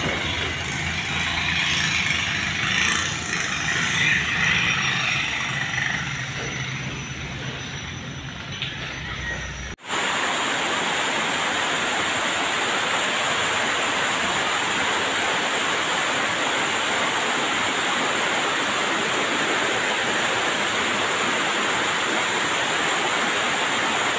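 An engine running with a steady low hum for about ten seconds. After an abrupt cut it gives way to a flat, unchanging hiss like tape static.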